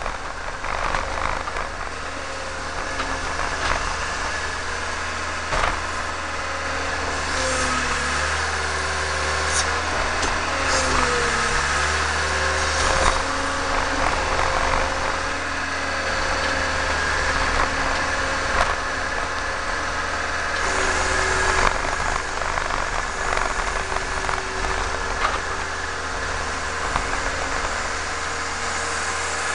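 Tractor engine running steadily, its pitch dipping briefly and recovering about a third of the way through, with scattered knocks and clanks.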